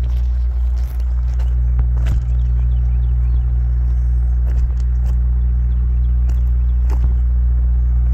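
Footsteps crunching on the gravel ballast of a railroad track, a few irregular steps, over a loud steady low rumble.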